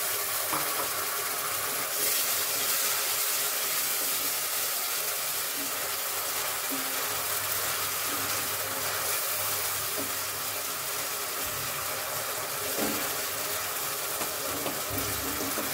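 Chopped tomato with onion, ginger-garlic and green chilli sizzling in hot oil in a metal kadhai, a steady hiss, while a wooden spatula stirs it with a few light taps and scrapes against the pan.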